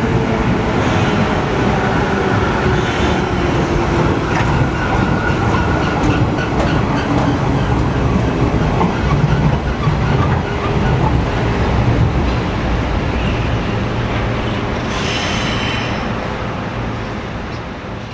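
A Series 103-1500 electric train braking into a station. Its motor whine falls in pitch over a low rumble and the clatter of wheels on rail joints. A brief high-pitched hiss comes about fifteen seconds in, and the sound dies away as the train comes to a stop.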